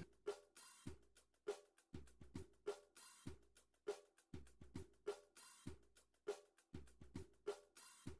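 Faint background music: a steady drum beat of kick drum thumps with snare and hi-hat hits.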